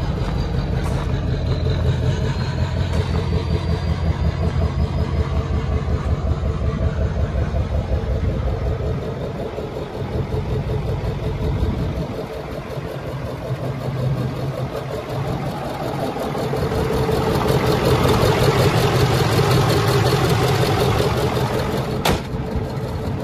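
Ford 6.4L Power Stroke turbo-diesel V8 of a 2008 F-450 idling steadily, growing louder about two-thirds in, with a sharp click near the end. The seller lists the engine as having a slight knock.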